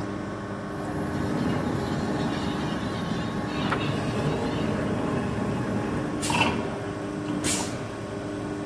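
CNC hydraulic punching machine running with a steady hum from its hydraulic pump. A faint click comes near four seconds in, then two short hissing bursts about a second apart.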